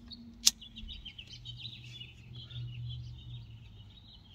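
Someone taking a hit from a pipe of cannabis: one sharp click about half a second in, like a lighter being struck, then a low steady hum for a couple of seconds while the hit is drawn. Birds chirp in the background throughout.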